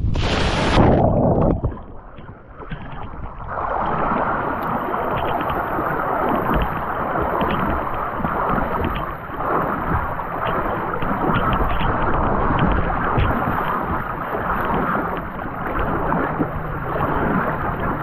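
A parachutist hitting the water with a splash, a brief muffled moment, then steady churning and splashing of water close around the camera at the surface, with many small crackles as the water breaks over it.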